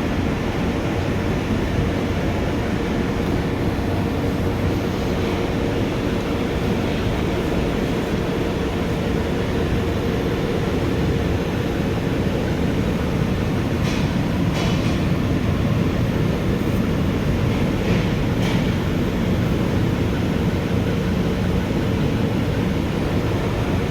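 Ford Ranger engine running steadily, a continuous low mechanical noise with a steady hum; it is the engine being diagnosed for knocking and white smoke.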